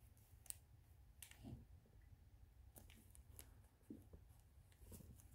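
Faint, scattered crinkles and ticks of the cellophane wrap on a perfume box as fingers handle and rub it, over near silence.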